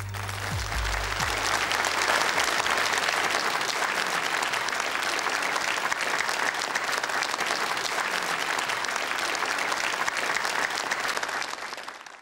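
Studio audience applauding steadily, with the last low notes of the song dying away at the start; the applause fades out near the end.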